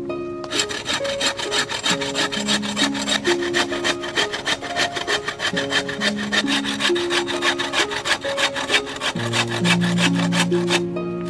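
Hand hacksaw cutting through a fresh green bamboo pole in quick, even back-and-forth strokes, several a second. The sawing stops briefly near the end. Background music of held notes plays underneath.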